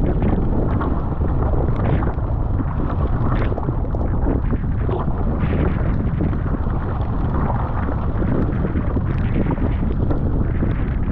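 Wind buffeting the microphone over water rushing and slapping against a Fenn Elite S surfski hull, with the paddle blades splashing in and out on each stroke.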